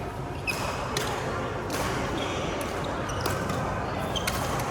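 Badminton rally: about eight sharp racket hits on the shuttlecock at irregular, quick spacing, with brief shoe squeaks on the court floor and background chatter in the hall.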